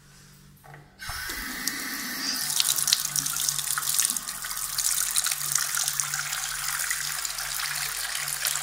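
Bathroom sink tap turned on about a second in, water running steadily from the faucet into the ceramic basin; the flow gets fuller a second or so later.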